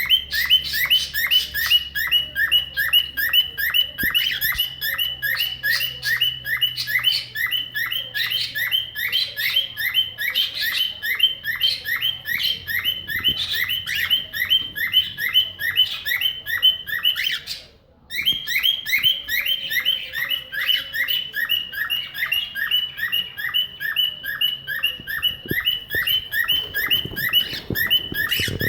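Cockatiel imitating a car alarm: a fast, even run of short rising chirps, about four a second, with one brief pause about two-thirds of the way through.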